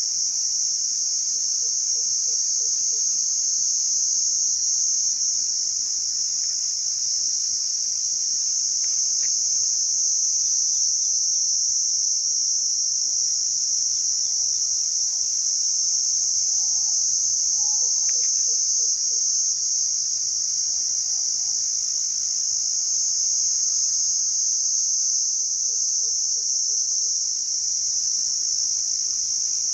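Crickets chirping in a continuous high-pitched trill that holds steady without a break.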